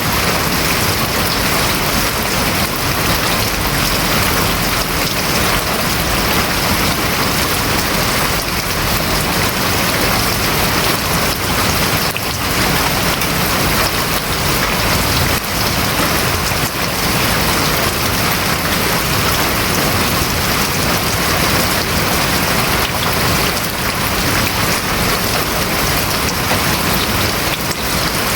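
Heavy rain drumming on a house roof, steady and unbroken.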